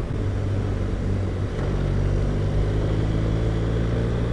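BMW R1200RT flat-twin motorcycle engine running steadily on the open road, over a constant rushing noise. The engine note shifts slightly higher about a second and a half in.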